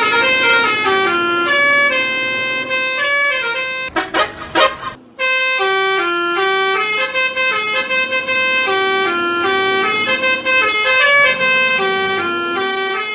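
Basuri musical bus horn (a 'telolet' horn) playing a tune of loud, stepped notes, each held a fraction of a second. About four seconds in, a brief rush of noise and a short pause interrupt it before the melody starts again.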